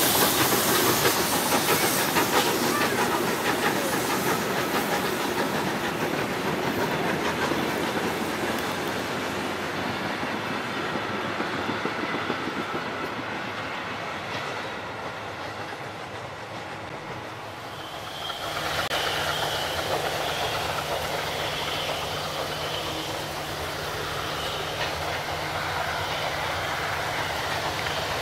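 DSB class F steam tank locomotive No. 654 passing with its coach: steam hissing and wheels clicking over the rail joints, fading slowly as the train moves away. About two-thirds of the way through the sound changes suddenly to a quieter, steadier scene with a low hum.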